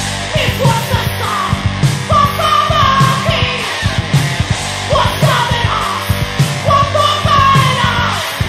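Heavy metal band playing: electric guitar, bass and drum kit, with pitch-bending lead lines over a steady low end and rapid drum hits.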